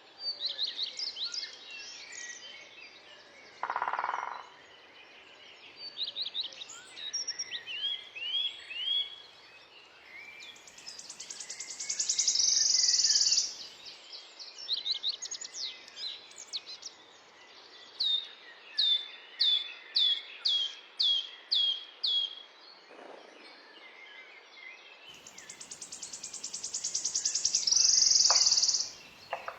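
Forest birds singing: many high chirps and trills. Twice a long trill speeds up and grows louder to a loud finish, and in between comes a series of about eight falling whistled notes, roughly two a second.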